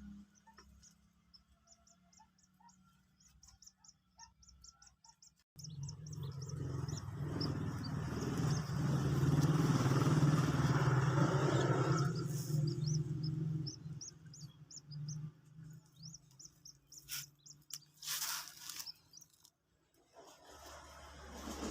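Rapid high peeping of a young white-breasted waterhen chick, many short repeated cheeps. About five seconds in, a low steady rumble starts and fades by about fourteen seconds, with a few sharp knocks near the end.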